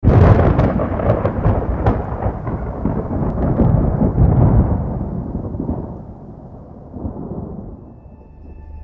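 A thunderclap: a sudden crack with crackling, then a rolling rumble that fades away over several seconds.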